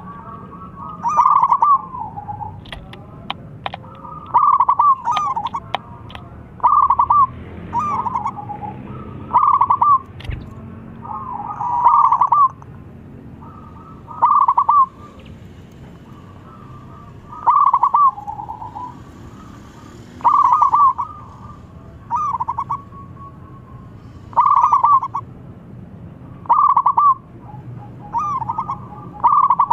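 Zebra dove (perkutut) singing its calling song: short clusters of quick, rippling coos, repeated about every two to three seconds.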